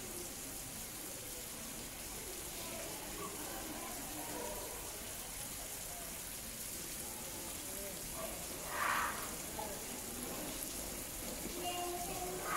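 Faint, indistinct voices of people in the background over a steady hiss, with one short, louder burst of noise about nine seconds in.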